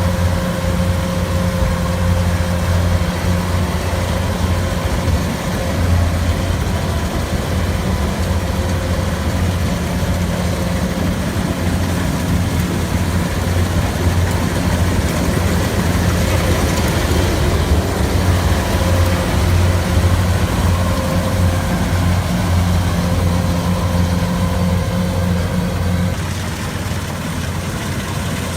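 Rice harvesting machine's engine running steadily with a deep, even hum; near the end the hum drops away and the sound gets a little quieter.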